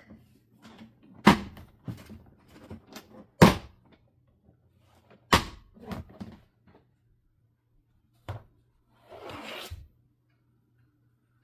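Thuds and knocks of a heavy boxed sewing machine being handled and set down: three loud knocks about two seconds apart with smaller ones between, then a short knock and about a second of rustling scrape.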